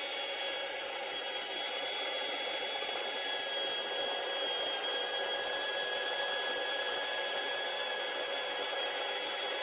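Electric drill running steadily, a motor whine with a few steady high tones, as the bit slowly cuts a hole through an aluminium 3D-printer bed plate.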